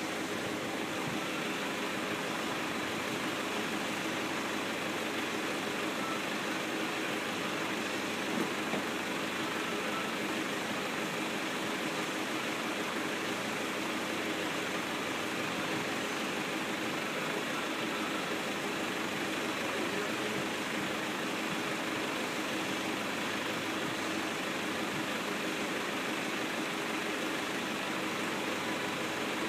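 Farm tractor's engine idling steadily, with two brief knocks a little over eight seconds in.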